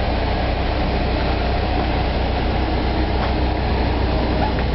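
Steady, unbroken drone of a camper van's onboard generator running.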